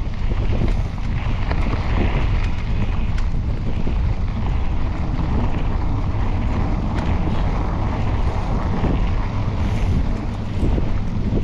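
Wind buffeting the microphone of a camera riding along on a mountain bike, a steady loud rumble, with scattered small clicks and rattles from the bike over rough ground.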